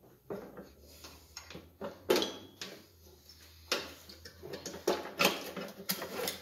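Irregular metal clicks and clacks as a riding mower deck's clutch cable and its spring are worked loose and unhooked by hand. The loudest knock comes about two seconds in, with a short metallic ring after it.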